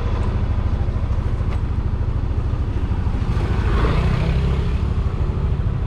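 Motorcycle engine idling with a steady low putter, swelling slightly about four seconds in.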